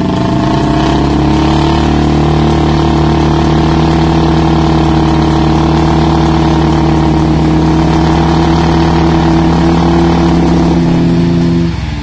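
A Royal Enfield Bullet 350 and a Bajaj Pulsar motorcycle held at high revs while doing burnouts, their rear wheels spinning in sand. The revs climb over the first couple of seconds, hold steady and loud, then drop off near the end.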